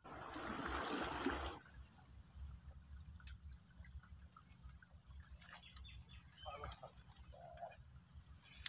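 Small waves washing and trickling against shell-covered rocks, louder for the first second and a half, then faint with a few scattered clicks.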